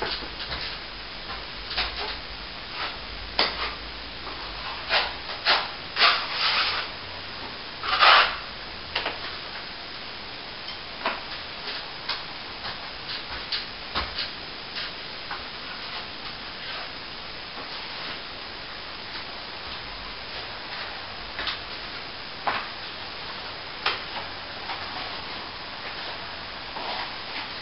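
Hand scraping or rubbing strokes on a plaster wall: short, irregular scratches, the loudest a few around six and eight seconds in, over a steady hiss.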